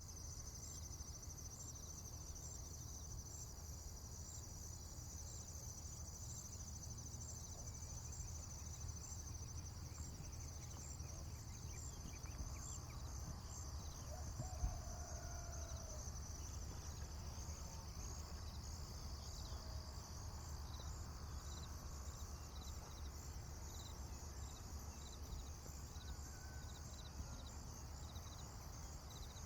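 Rural morning ambience: a steady chorus of crickets and other insects chirping in rapid pulses, over a low steady rumble. A faint call or two sounds near the middle, with a single sharp knock about halfway through.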